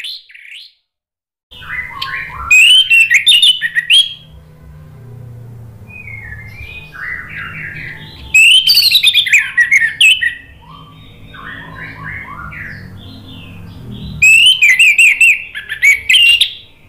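Caged orange-headed thrush (anis merah) singing: three loud bursts of rapid, varied whistled phrases, with softer, lower phrases between them.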